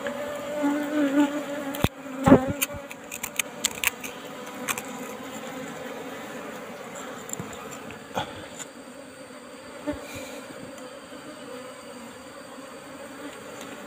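Asian honeybees (Apis cerana) buzzing steadily around their opened nest, with a cluster of sharp clicks and knocks in the first few seconds and a couple more later as the comb is handled.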